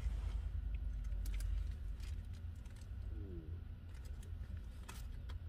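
Low steady rumble inside a car, with scattered crinkles and clicks of a fast-food burger wrapper being handled and opened. About three seconds in comes a brief low coo-like sound.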